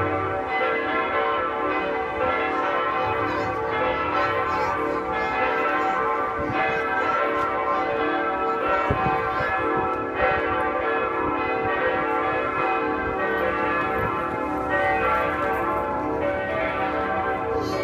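Church bells ringing, a continuous run of strokes every second or two whose tones hang and blend into one another.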